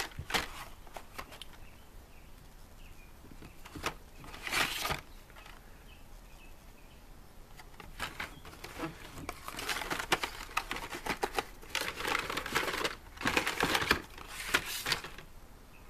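Hot Wheels blister packs on cardboard cards crinkling and clacking against each other as a hand flips through them in a plastic tub. It comes in bursts: briefly at the start, again about four seconds in, and a longer run of rustling and clicks from about eight seconds in to near the end.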